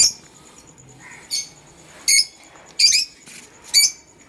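Caged cockatiels and lovebirds giving short, shrill chirping calls, about five in a row at roughly even intervals.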